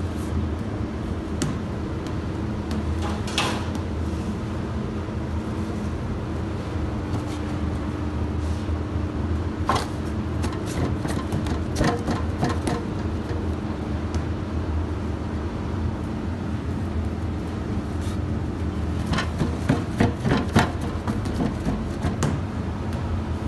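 Steady low hum of machinery, with scattered knocks and clatter as dough is pressed into metal loaf tins; a small cluster of knocks comes near the end.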